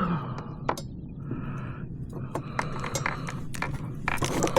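Scattered light clicks and clinks with soft rustling from a fish and fishing gear being handled on a kayak.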